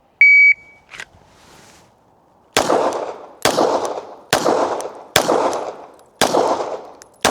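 A shot timer's short electronic start beep, then six 9mm shots from a Glock 17 pistol, fired evenly about a second apart, each trailing off in an echo. The last shot comes just at the end.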